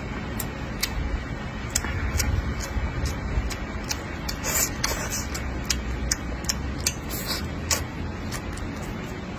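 Close-miked chewing and lip smacking: a string of sharp, wet mouth clicks, about two a second, as a person chews a mouthful of braised pork and rice.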